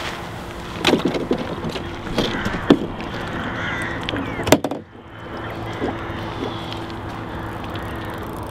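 Knocks and clicks as a Waverunner bait boat is handled at the water's edge, then, about halfway through, the steady hum of the bait boat's electric motors as it runs out across the lake.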